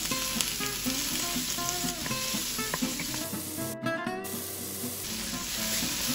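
Sliced red onions and ginger sizzling as they fry in oil in a stainless steel pan, stirred with a wooden spoon. The sizzle breaks off briefly a little past the middle.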